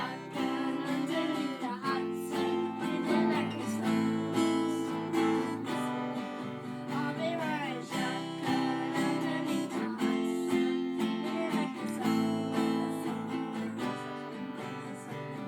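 Acoustic guitar strummed steadily through a run of chords.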